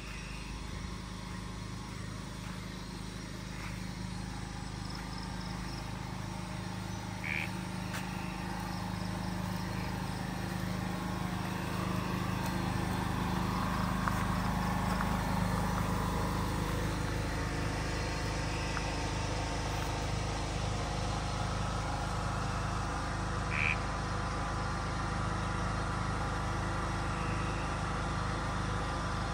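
An engine running steadily with a low hum, growing gradually louder, with two short high chirps over it.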